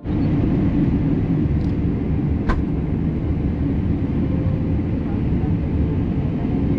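Steady low rumble of a vehicle in motion, even throughout, with one short click about two and a half seconds in.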